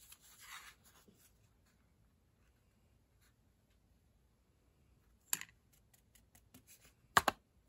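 Quiet handling of a plastic embossing-powder tub: a soft rustle of powder at first, then a light click about five seconds in and two sharp clicks close together near the end as the card and spoon knock against the tub to shake off the excess powder.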